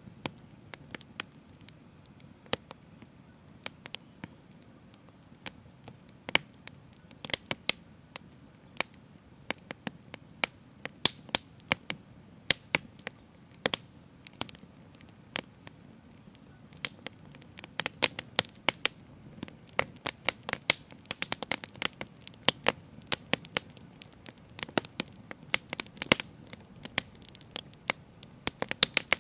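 Open fire crackling with irregular sharp pops over a low, steady rush of flame. The pops come thicker in the second half.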